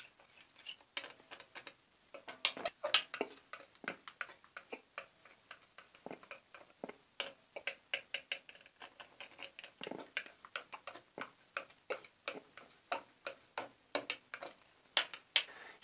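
A sticky glue-and-shampoo slime mixture being stirred in a container, giving many quick, irregular wet clicks and smacks, several a second.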